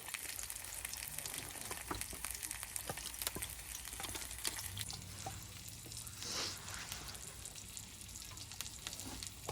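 Food sizzling as it cooks, a steady hiss with many small crackling pops and a brief louder hiss about six seconds in.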